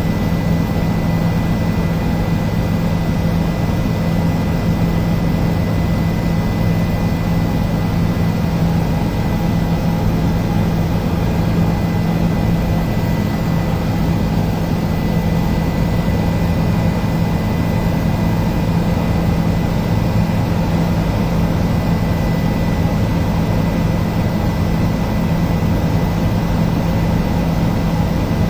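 Helicopter in flight, engine and rotor running steadily: a constant loud drone with a thin, steady high whine over it.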